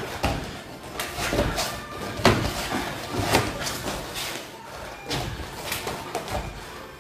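Sharp slaps and thuds of arms and hands striking and blocking in hand-to-hand sparring, about half a dozen at irregular intervals.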